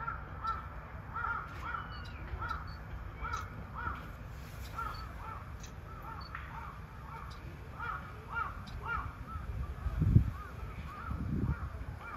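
Several crows cawing over and over, short calls two or three a second that overlap one another. A low thump about ten seconds in.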